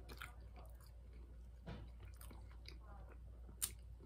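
A person chewing a fried fish sandwich with faint, wet mouth sounds and small clicks, then a sharp crunchy bite near the end, over a low steady hum.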